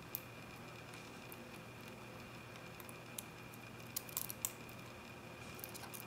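Faint, sparse metallic clicks and scrapes of a diamond pick working the pins of a Master Lock 528 dimple cylinder under tension, with a little cluster of clicks about four seconds in.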